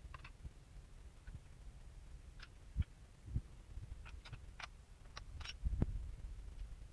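Faint clicks and light metallic clinks of small parts being handled as the needle plate and presser foot come off an industrial straight-stitch sewing machine, with a few dull low knocks, the loudest near the end.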